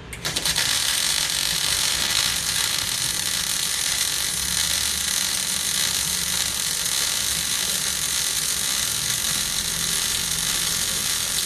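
MIG welding arc struck just after the start, stuttering for a moment, then running steadily as the bead is laid, with voltage and wire speed turned up for a hotter run.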